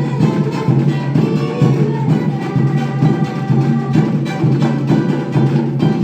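A live band playing an instrumental passage with a steady beat.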